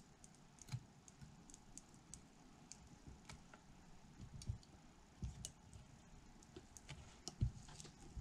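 Faint, irregular small clicks and taps of hand work on a pack of 18650 lithium-ion cells being soldered together.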